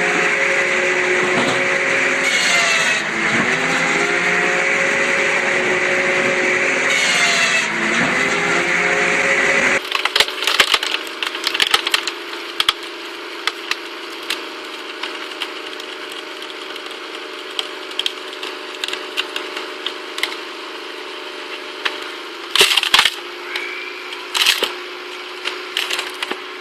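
A machine's engine running loud and steady, its pitch dipping briefly several times as if under load. Then a quieter steady hum of a log splitter with many sharp cracks and snaps of wood splitting apart.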